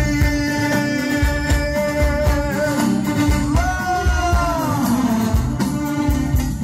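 Live amplified band music with a man singing into a microphone, over a steady drum beat.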